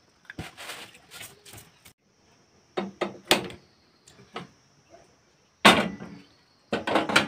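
Irregular knocks and clatter of things being handled, with a sharp louder knock a little past the middle. A steady high-pitched whine starts about two seconds in.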